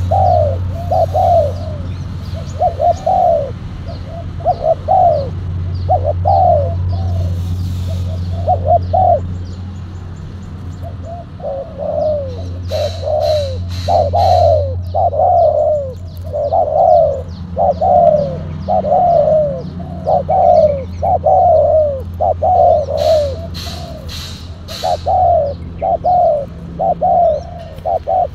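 Spotted doves cooing: low coo notes, each falling in pitch, repeated in phrases of two or three, with a short break about ten seconds in. A few sharp, crackling noises come about halfway and again near the end, over a steady low hum.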